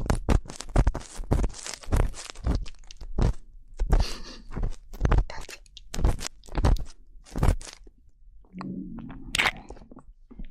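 Ear-cleaning ASMR sounds: an ear pick scraping and crunching close on the microphone, in rapid irregular crackles and clicks that stop about eight seconds in. A brief soft low murmur and a couple of clicks follow near the end.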